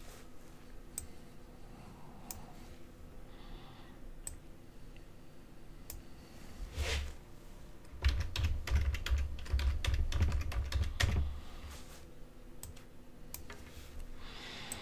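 Typing on a computer keyboard: a few scattered clicks, then a quick run of keystrokes about eight seconds in that lasts some three seconds.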